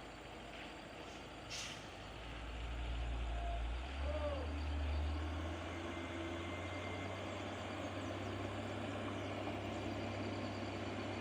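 A heavy truck's engine running, growing louder about two seconds in and then holding a steady low drone, with a brief squeal about four seconds in.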